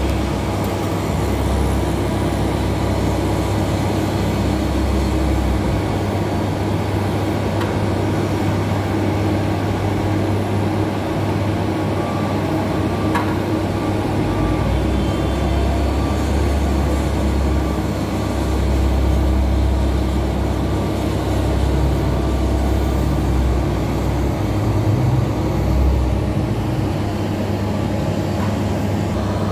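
Heavy motor-vehicle engine and road rumble running steadily, with a deep low drone that swells and eases now and then.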